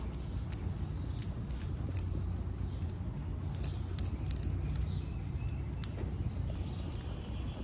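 Dog collar tags jingling in small scattered clinks as a black Labrador moves about and is petted, over a steady low rumble.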